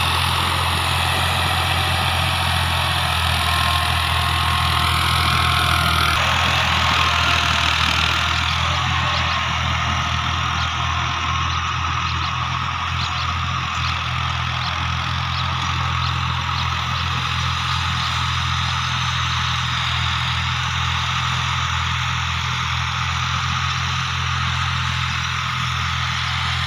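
Fiat tractor's diesel engine running steadily under load as it pulls a rotavator through the soil. For this tractor the rotavator is a hard pull.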